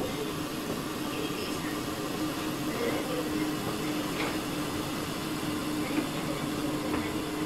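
Lidded pot of pork in coconut milk simmering on a portable gas stove, under a steady low hum. Light clicks about four and six seconds in as the stove's burner knob is turned.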